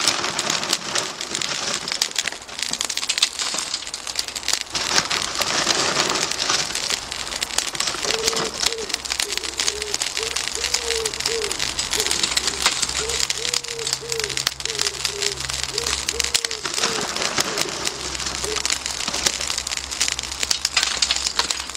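Charcoal and newspaper burning in two chimney starters, a steady dense crackling and hissing like rain. From about a third of the way in, a pigeon coos repeatedly for several seconds.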